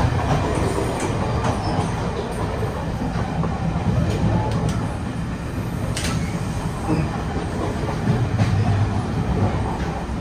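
Passenger train running, heard from on board: a steady rumble of wheels on rail, with scattered light clicks and knocks.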